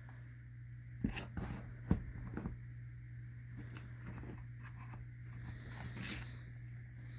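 Plastic parts of an Israeli 4A1 gas mask being handled as the plastic cover over its speech diaphragm is slid off. A few sharp clicks and knocks come about one and two seconds in, with a fainter click near six seconds.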